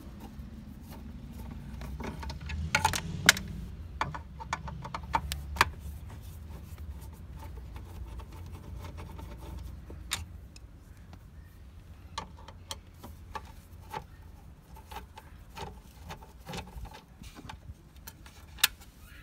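Scattered sharp clicks and ticks of a screwdriver and small screws being worked out of a car's dashboard trim, loudest about three seconds in and again near the end, over a low steady rumble.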